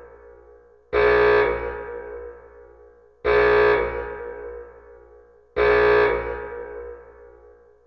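Alarm sound effect: a steady-pitched, harsh blast that starts suddenly and fades away over about two seconds, repeating three times about every two and a quarter seconds.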